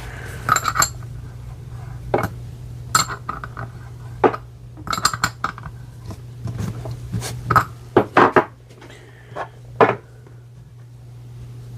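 Metal hand tools clinking and clattering as they are picked through and set down while hunting for a wrench: a scatter of sharp metallic clinks, some in quick clusters, over a steady low hum.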